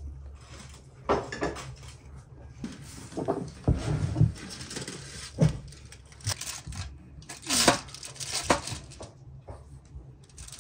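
Table knife spreading butter over corn cobs on a foil-lined baking tray: irregular scrapes and light taps of the blade, with the foil crinkling.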